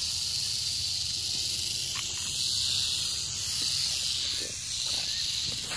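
Western diamondback rattlesnake rattling its tail in a steady, high buzzing hiss: the defensive warning of a disturbed snake.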